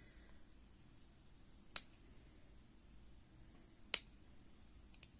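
Wire cutters snipping the clip off a gel pen barrel: two sharp snaps about two seconds apart, the second louder, then a faint click near the end.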